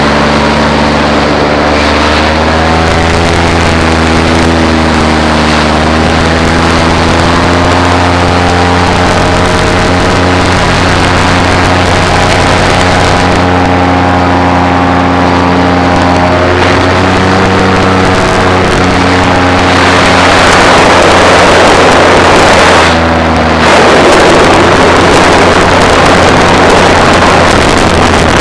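Paramotor engine and propeller running steadily in flight, its pitch wavering slightly. About two-thirds of the way in, a loud rushing noise joins it and briefly drops out once before returning.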